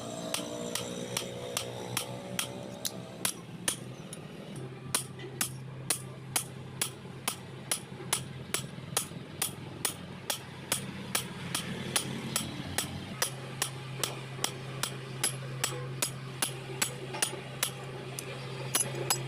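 Blacksmith's hammer striking metal on an anvil in a steady rhythm, about two and a half blows a second, over a steady low hum.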